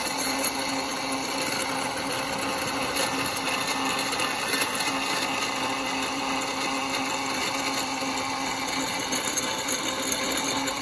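Greenworks 80V cordless brushless tiller running under load, its electric motor giving a steady hum while the tines churn and throw dry soil full of roots.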